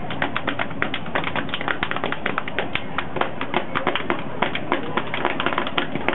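A step team stepping: rapid, rhythmic hand claps, body slaps and foot stomps, several sharp hits a second.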